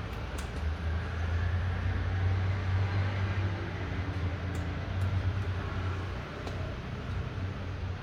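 Light rain falling as a steady hiss, with a few sharp drop ticks, under a low rumble that swells about a second in, holds for several seconds and eases near the end.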